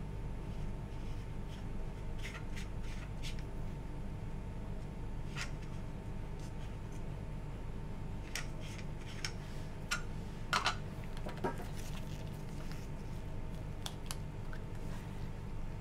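Light plastic clicks and rubbing as gloved hands handle an agar plate, a cotton bud and a plastic tube, a few sharper clicks about ten and a half seconds in, over a steady low hum.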